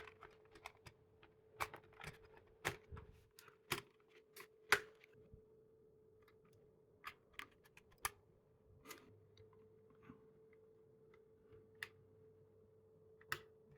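Small parts of a mini PC being handled and fitted back together: scattered light clicks and taps, busiest in the first five seconds and sparser after, over a faint steady hum.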